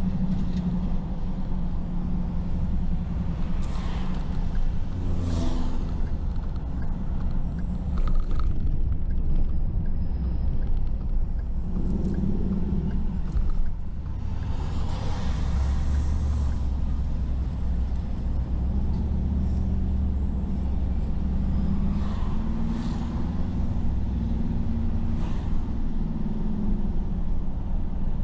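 Car driving on city streets: a steady low engine and road rumble, with a few brief swells of noise that come and go, most plainly about five and fifteen seconds in and again near twenty-three seconds.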